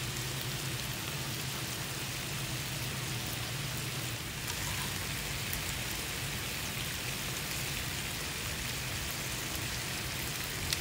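Bacon sizzling on an electric griddle, a steady crackling hiss, with a low hum underneath.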